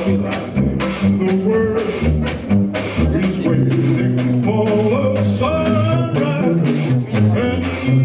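A man singing a vintage-style blues song with a small acoustic jug-band-style group. A low bass line changes note about every half second under a quick percussive rhythm.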